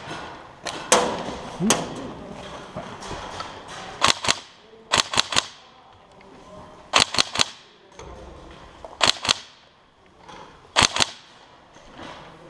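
Airsoft guns firing in short strings of two to four quick shots, a string every second or two.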